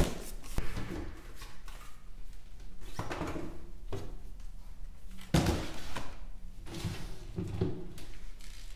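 Cabinet drawer and plastic storage box being handled as gel bottles are put away: irregular knocks and clatters with soft rustling between, the loudest knock about five seconds in.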